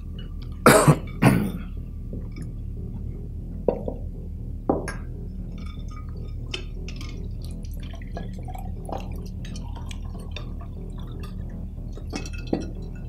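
Two loud glass knocks about a second in, then a few lighter clinks, then liquid being poured from a jug into a drinking glass, with small dripping ticks.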